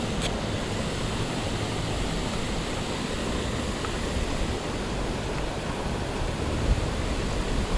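Steady rushing of water pouring over a spillway.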